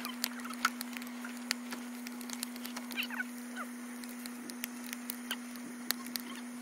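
Birds chirping and calling in bushland, with scattered sharp clicks, over a steady low hum.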